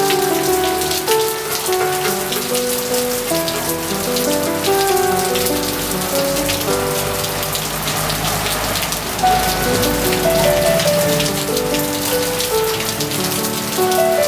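Steady rain falling, heard as a dense hiss of many small drops, with piano music playing over it.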